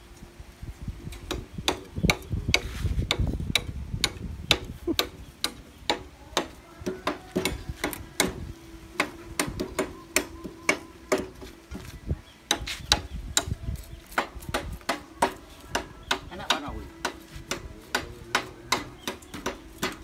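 Hammer striking a sawn timber beam in a long run of sharp taps, irregular at first, then settling to about two or three a second, working out nails embedded in the wood.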